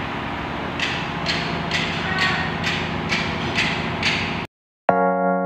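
Line boring machine running on a Komatsu WA380-3 wheel loader's front axle trunnion bore: steady mechanical noise with a rhythmic hissing scrape about twice a second. It cuts off abruptly about four and a half seconds in, and after a brief gap keyboard music with held notes begins.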